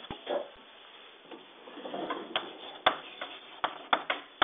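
Chalk writing on a blackboard: sharp taps as the chalk strikes the board, a handful of them in the second half, with soft scratching strokes in between.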